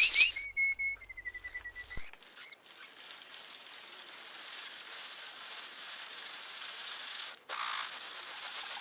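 A songbird singing: a rapid loud trill breaks off in the first moment, then one whistled note is held for over a second, falling slightly in pitch. After that comes a faint steady hiss with soft chirps, and a louder rush of noise near the end.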